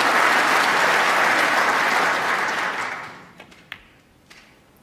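Arena audience applauding, then dying away about three seconds in, leaving only a few faint isolated clicks.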